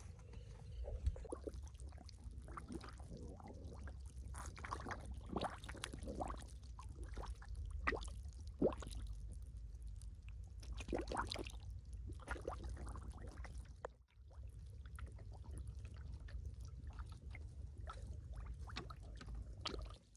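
Shallow field water splashing and sloshing in irregular strokes as someone wades and works their hands through it, over a steady low rumble.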